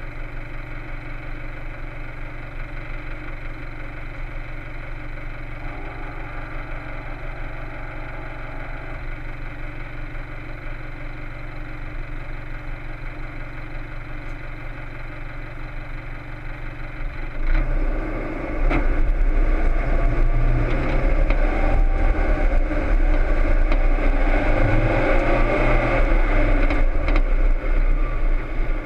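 Toyota Land Cruiser KDJ125's 3.0-litre turbodiesel idling steadily. About 17 seconds in the sound turns suddenly louder as the vehicle drives a rutted dirt track, the engine pulling under load with a few sharp knocks and rattles from the bumps.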